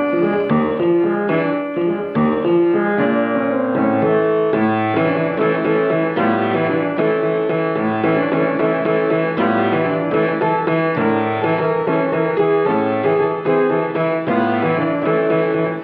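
Solo piano playing continuously: a melody over chords with a recurring low bass note.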